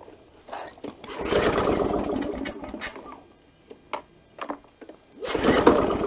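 Victa Power Torque VE40 two-stroke mower engine being pull-started twice, cranking over on the recoil starter each time without catching.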